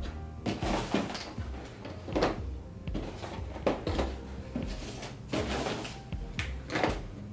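Boxed items and their packaging being handled during an unboxing: an irregular series of knocks, taps and rustles as things are lifted out and set down.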